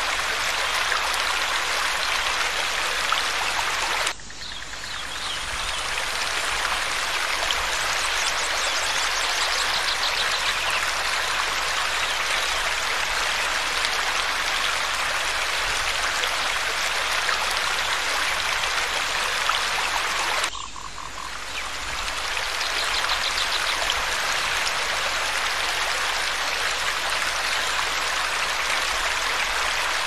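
Steady dense hiss of running water, with faint pulsing animal calls over it. The sound cuts down abruptly about four seconds in and again about twenty seconds in, and each time swells back over a couple of seconds.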